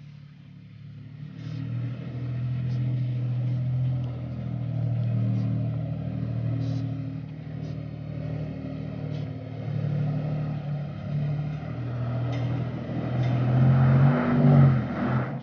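Toyota Tacoma 4x4 pickup's engine pulling steadily under load as the truck crawls up a steep dirt trail, revving higher near the end.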